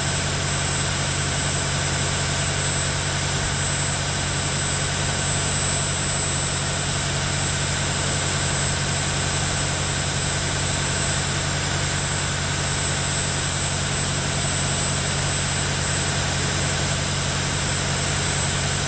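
Cummins 855 Big Cam 14-litre six-cylinder diesel running steadily under load on an engine dynamometer at cruise speed, about 1500 rpm. A steady high-pitched whine sits above the engine note.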